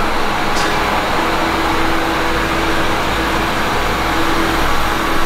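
Steady machine drone with a rushing noise and a constant hum tone, from the flood pump station's pumps running.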